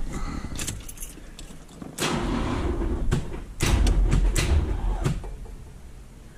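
Corvette's starter cranking the engine on the key, starting about two seconds in and getting louder, with uneven clunks, about three and a half seconds in, then dying away without the engine starting. It is a hard-start problem that the owner suspects is a cooked starter.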